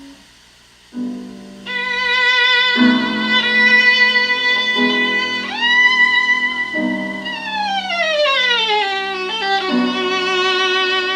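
Recorded violin music with piano accompaniment, played back through a 6BM8 single-ended valve amplifier. Long held violin notes with vibrato, a slide up about five and a half seconds in and a long downward glide around eight seconds, over piano chords struck every couple of seconds.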